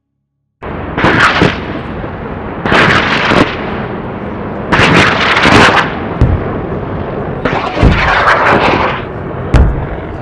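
Five heavy booming hits over a loud rushing noise, starting suddenly after silence.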